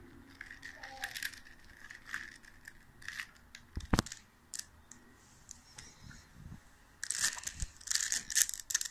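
Plastic 3x3 Rubik's cube being turned by hand: irregular clicks and clacks of its layers rotating, with one sharp click about four seconds in and a quicker run of turns in the last two seconds.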